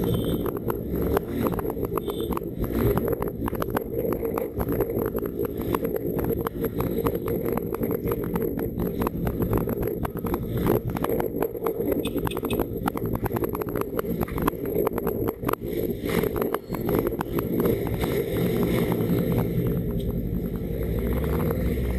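Motorcycle engine running at low speed, heard from the rider's seat.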